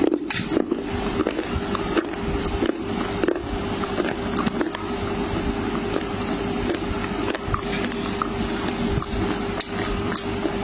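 Close-miked chewing of kala jamun, soft syrup-soaked fried milk-dough balls: steady wet squishing with many small mouth clicks and smacks. A steady low hum runs underneath.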